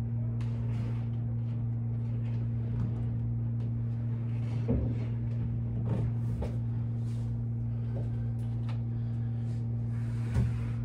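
Steady low hum throughout, with a few soft thumps as a person works through push-ups with feet on an exercise ball. The last and strongest thump comes about ten seconds in, as he steps down off the ball.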